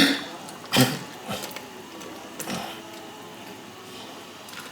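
Cookware being handled: a sharp clatter about a second in and a softer knock a little later, over a steady low hiss.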